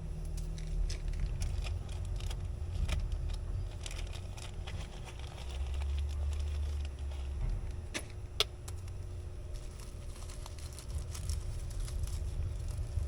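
Small metal clicks and clinks of hand tools and refrigeration fittings being worked, over a low steady rumble, with one sharp click about eight seconds in.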